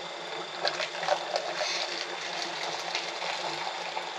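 Hot coffee running and splashing, with a few light clicks and clinks about a second in.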